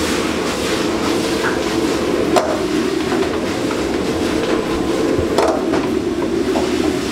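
Steady rush of a high-flame gas wok burner under a wok as stir-fried beef and vegetables are tossed and stirred, with sizzling and a metal spatula scraping the pan. Two sharp metal clanks stand out, about two and a half and five and a half seconds in.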